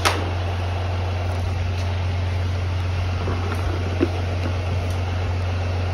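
Steady low engine rumble of an idling vehicle, with a sharp click at the start and a short knock about four seconds in.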